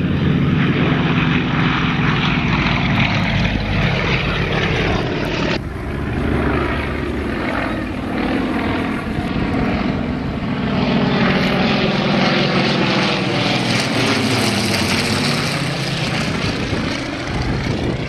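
Light single-engine propeller aircraft flying overhead: a loud, continuous piston-engine and propeller drone, its pitch sliding up and down as the planes manoeuvre and pass, with an abrupt change about five and a half seconds in.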